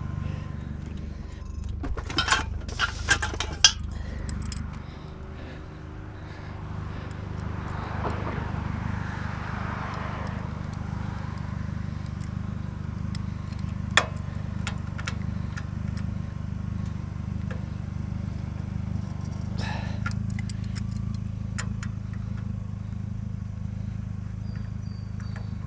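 Scattered metal clinks and knocks from hand tools working on scrap metal, a quick flurry of them a couple of seconds in and single ones later, over a steady low rumble of road traffic, with a vehicle passing a few seconds in.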